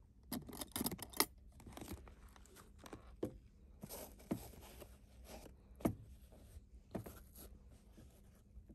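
Faint handling of an aluminium microphone case: a quick run of clicks from its latches and lid in the first second, then rustling of a cloth mic pouch against the foam insert with a few scattered small knocks.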